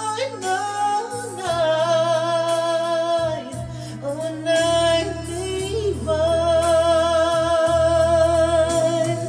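A man singing a slow carol melody into a microphone over backing music, holding long high notes with a wide vibrato.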